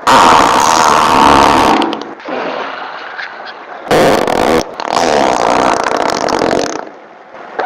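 A string of farts edited back-to-back: a long loud one, a weaker drawn-out one, a short abrupt blast about four seconds in, then another long one that dies away near the end.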